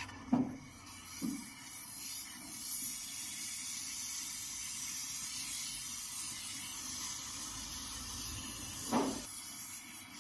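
Brazing torch flame hissing steadily while a refrigerator's refrigerant pipe joint is brazed, with a few brief knocks near the start and one about nine seconds in.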